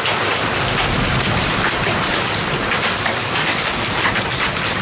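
Steady rain mixed with small hailstones falling on wet concrete steps: a constant hiss dotted with many sharp little ticks of impacts.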